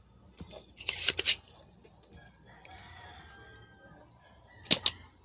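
Spring-loaded desoldering pump (solder sucker) fired twice, each a short burst of sharp clicks, about a second in and near the end. It is sucking molten solder off the pins of a shorted IC to remove it from the board.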